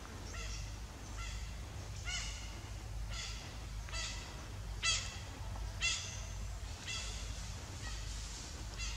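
An animal calling over and over in short, high, arched notes, about one a second, over a low steady hum.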